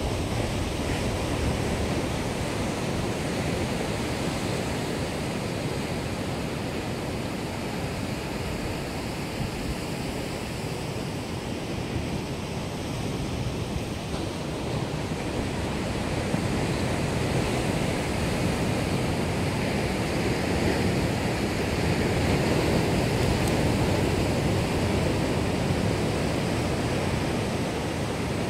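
Atlantic surf breaking and washing over black lava rocks: a steady rush of churning water that swells louder in the second half as larger waves come in.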